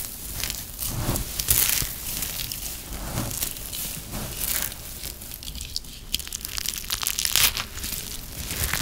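Balls of crispy, crumbly dry soap being crushed and squeezed in the hands: a dense, irregular crunching and crackling, with a few louder crunches.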